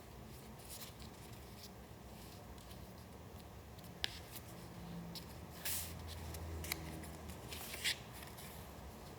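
Paper being handled: soft rustling with a few short, crisp paper sounds. The sharpest comes about four seconds in, and a cluster of louder ones falls in the last few seconds.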